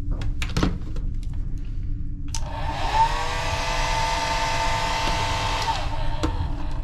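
Wall-mounted hair dryer handled with a few knocks, then switched on about two and a half seconds in. It runs for about three seconds with a steady whine over the rush of air, then is switched off and its motor winds down.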